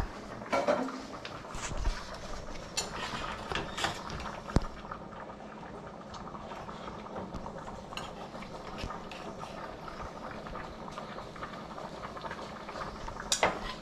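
Stew simmering in pots on a gas stove, with a metal spoon clinking and scraping against the pans as cooked chicken is spooned into the pot. There is a sharp clink about four and a half seconds in and a louder clatter near the end.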